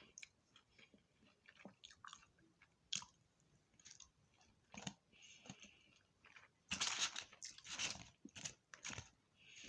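Someone chewing and crunching on fish and tater tots close to the microphone, with scattered soft chewing clicks and then a louder run of crunchy bites in the last few seconds.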